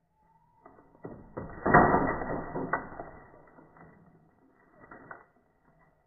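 Bird-trap cage springing shut with a sudden clatter about a second and a half in, then rattling and clicking that dies away, with a smaller rattle near the end.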